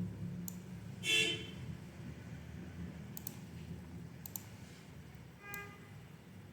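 A few quiet, separate clicks, with two short pitched blips, one about a second in and one near the end.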